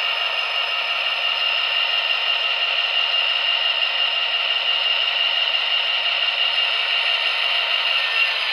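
Tsunami sound decoder in an HO-scale Athearn Genesis SD60I model locomotive, playing a steady diesel engine running sound through its small speaker as the model moves. The sound is thin, with no deep bass.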